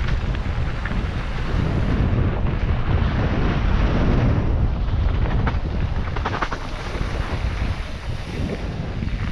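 Wind rushing over the microphone and a steady rumble from a mountain bike riding downhill over rough, rocky ground. A few sharp rattles and clicks come past the middle.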